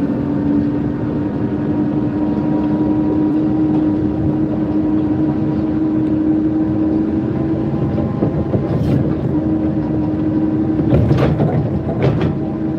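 Forklift running while being driven, a steady mechanical hum with rough low rumbling from the wind buffeting the microphone. A few short clicks and knocks come near the end.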